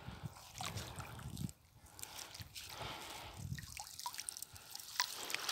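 Water dripping and trickling in irregular small drips and splashes as a cast net is drawn up out of shallow water.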